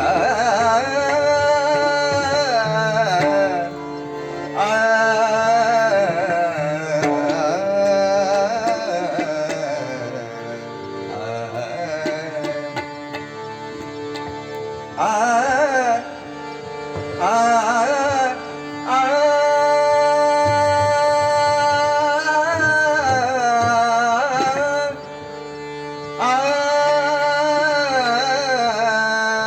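Indian devotional singing in raga Bhairavi: a man's voice holding long, ornamented notes in phrases, over a steady drone-like accompaniment and light drumming.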